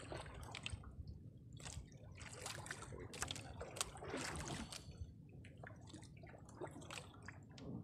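Faint, irregular small splashes with water dripping and trickling beside the hull of a small outrigger boat.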